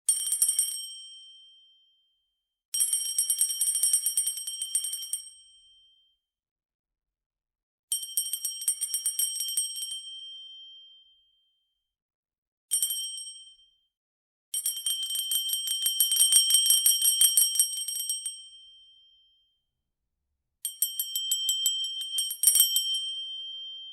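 Metal dinner bell rung in six quick bouts of rapid clanging, with a high, clear metallic ring that dies away after each bout. The fourth bout is very short and the fifth is the longest.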